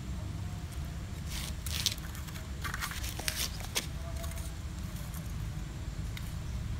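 Metal tongs and small charcoal lumps clicking and clinking against each other as pieces are stacked onto a burning charcoal sate grill, in two short clusters between about one and four seconds in. A steady low rumble runs underneath.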